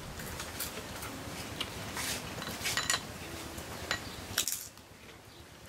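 Boiling water hissing under a cloth stretched over a steaming pot, with a few light clinks and taps from utensils. The hiss drops away about four and a half seconds in.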